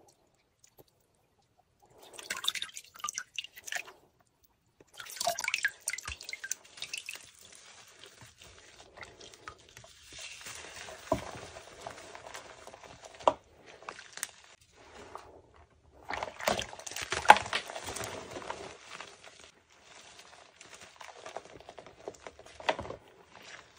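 Hands squeezing and crumbling hydrophobic-coated chalk in a basin of water: bouts of water splashing and dripping mixed with soft crunching of the chalk, coming and going in several bursts after a short quiet start.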